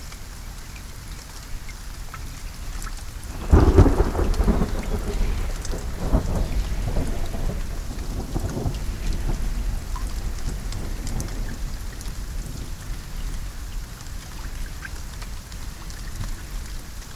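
Steady rain falling, with a sudden clap of thunder about three and a half seconds in that rumbles on and fades away over the next five seconds or so.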